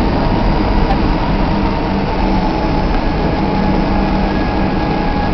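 Jet airliner's engines running steadily, heard from inside the passenger cabin as the plane taxis slowly, with a steady hum under the cabin noise.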